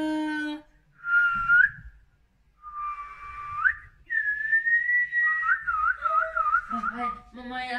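A person whistling. There are two short notes, each rising at its end, then a long held note that drops into a wavering trill. A lower voiced sound comes in near the end.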